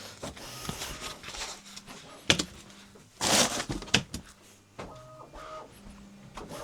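Bambu Lab P2S 3D printer homing its toolhead: its stepper motors whine in short moves at steady pitches, with a sharp knock a little over two seconds in and a brief louder rush of noise about three seconds in.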